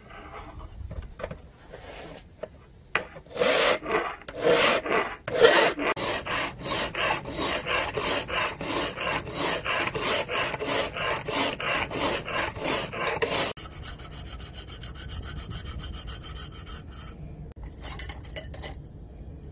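A hand file is drawn back and forth along the edge of a motorcycle brake-disc steel knife blade clamped in a guide-rod bevel jig, cutting the edge bevel. It rasps in steady strokes, about two a second. About two-thirds of the way in the strokes turn lighter, quieter and quicker, and they stop near the end.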